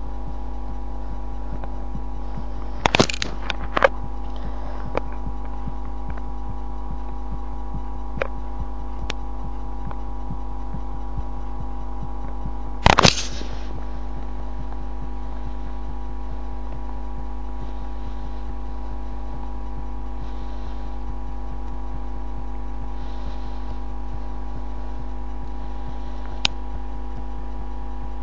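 A woman's heartbeat picked up close by a microphone, deep and muffled under a steady electrical hum. There are a few loud crackles: two about three to four seconds in, one near the middle and one near the end.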